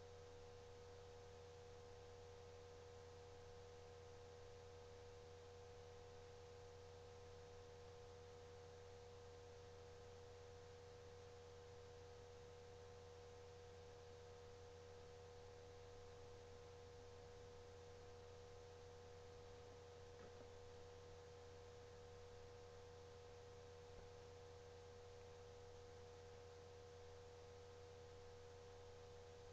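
Near silence: a faint, steady electrical hum with a constant pitch over light hiss.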